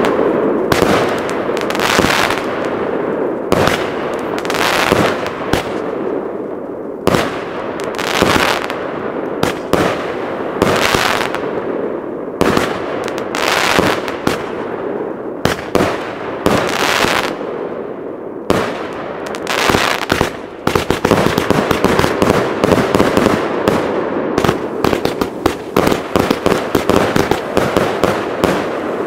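Big firework cake (multi-shot battery) firing: a steady run of launch thumps and aerial bursts with crackle between them. From about two-thirds of the way in, the shots come much faster, several a second.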